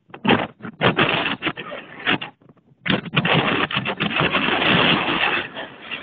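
Strong gusty storm wind buffeting the microphone in loud rushes, cutting out briefly twice, with one long unbroken gust from about halfway through that eases near the end.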